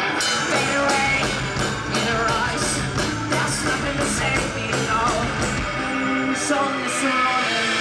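Rock band playing live: electric guitars, bass guitar and a drum kit, with cymbal hits keeping a steady beat.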